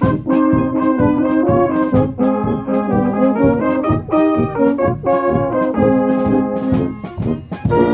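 Bavarian brass band (Blaskapelle) playing: low brass such as tubas and baritone horns carry held notes over a drum kit with cymbals keeping a steady beat. The music briefly drops back near the end, then the next phrase comes in.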